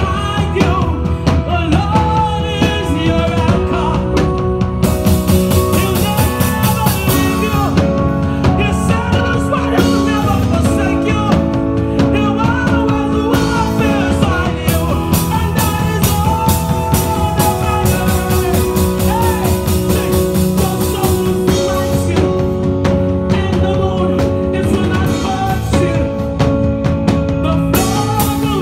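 Live gospel worship music: women singers leading a slow worship song over sustained keyboard chords and a band with drums. The band grows fuller about five seconds in and thins out again about twenty-one seconds in.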